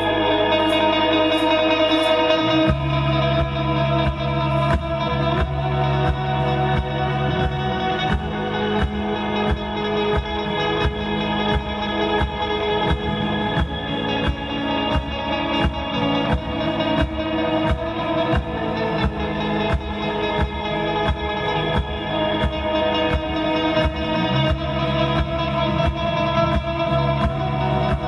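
Rock band playing an instrumental passage: effects-laden electric guitar and sustained organ-like chords, with bass and a steady drum beat coming in about two and a half seconds in.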